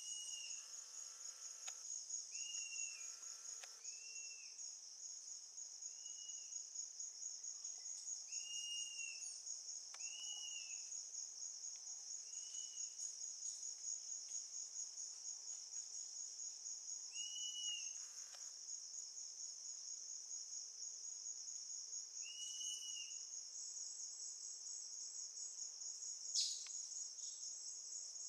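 A steady, high-pitched insect trill, pulsing fast. Over it, a short arched whistled note repeats every few seconds, and a single sharp click comes near the end.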